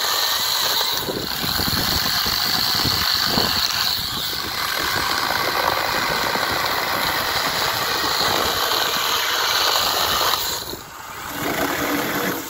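Cordless 6-inch brushless mini chainsaw running and cutting through tree branches: a steady high motor whine with the chain's cutting noise. The sound dips briefly about ten and a half seconds in, then comes back lower-pitched near the end.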